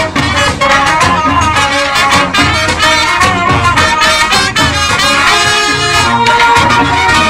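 School marching band playing: trumpets, trombones and sousaphones over a beat of drum strikes.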